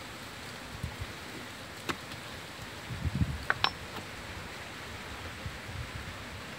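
A few light clicks and soft taps over a steady hiss: a raw potato slice, a small steel cup and a plastic bottle cap being handled and pressed on a wooden cutting board. The sharpest clicks come about two seconds in and again around three and a half seconds.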